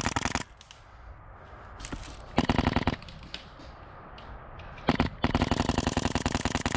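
Airsoft rifle firing in rapid full-auto bursts: a short burst at the start, another about two and a half seconds in, then a long continuous string of shots from about five seconds in.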